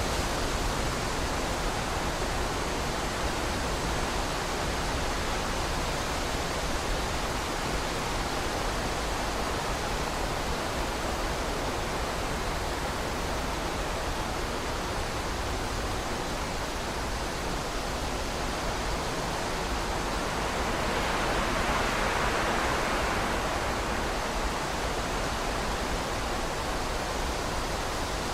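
Strong wind blowing as a steady rush of noise, swelling into a stronger gust a little past two-thirds of the way through.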